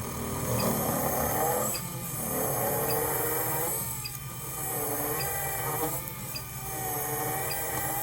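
Dental implant drill motor driving an osseodensification bur into bone in a rhythmic in-and-out pumping motion. The steady whine swells four times as the bur is pressed in, its pitch bending under load, with a faint tick about once a second.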